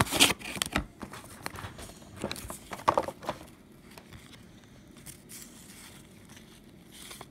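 Paper and thin cardboard packaging being handled: a toy box and its printed insert card crinkling and rustling, loudest in the first second, with a few more rustles around the second and third seconds, then only faint occasional rustles.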